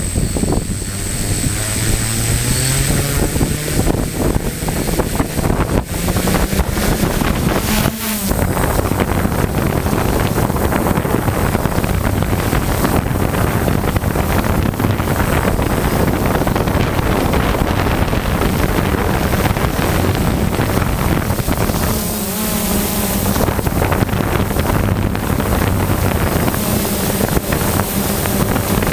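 DJI F550 Flamewheel hexacopter's six motors and APC 10x4.5 propellers running, heard from the camera on the craft. The buzz rises in pitch over the first couple of seconds as it throttles up and lifts off, then holds steady, shifting pitch briefly twice as the craft manoeuvres, with wind buffeting the microphone.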